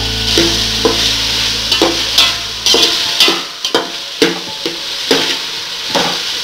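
A long slotted steel spoon scraping and clinking against the sides of an aluminium pot, about two strokes a second, as diced vegetables are stirred and sautéed in hot oil. The oil sizzles steadily underneath the strokes.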